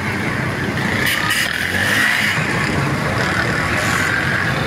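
Street traffic noise: motor vehicle engines, motorcycles among them, running with a steady din that swells briefly about a second in as one passes.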